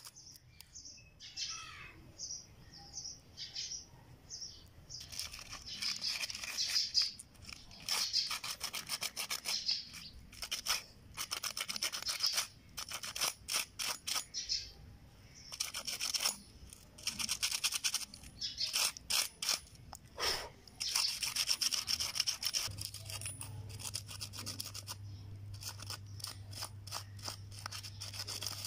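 Sandpaper rubbing back and forth on a small rusty rivet in quick scratchy strokes, in runs of a few seconds with short pauses between.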